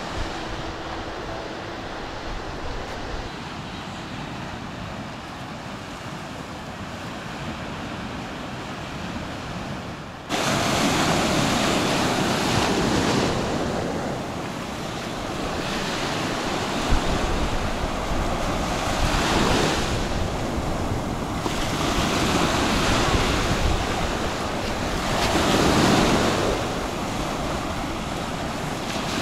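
Small sea waves breaking and washing up a sandy beach, with wind on the microphone. The surf turns suddenly louder about ten seconds in, then swells and falls back in surges every few seconds.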